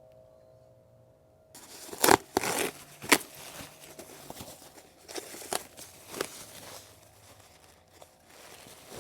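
Plastic packaging being torn and crumpled, with several sharp crackles, starting about a second and a half in after a faint steady tone.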